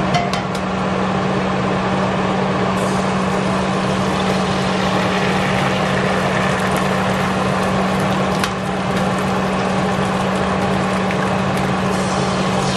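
Eggs frying in hot sausage grease in a cast-iron skillet: a steady sizzle, over a constant low hum.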